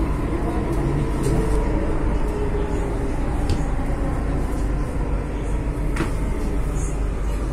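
Delhi Metro train running along a station platform, heard from inside the carriage: a steady low rumble, with a faint click about six seconds in.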